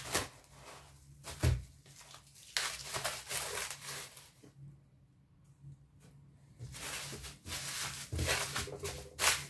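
Plastic cling film crinkling and rustling as dough wrapped in it is gathered and pressed by hand, with a low knock about one and a half seconds in and a quieter pause in the middle.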